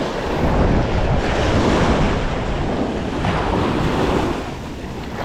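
Ocean waves washing onto the beach, mixed with wind buffeting the microphone. The surge builds about half a second in and eases after about four seconds.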